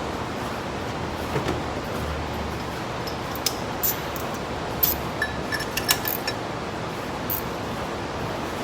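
Light metallic clinks and taps from hand tools and parts being handled, a dozen or so short clicks clustered in the middle, over a steady background hiss.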